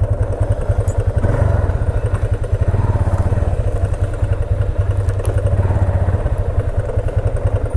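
Motorcycle engine running at low speed close to the microphone, with a rapid, even firing beat.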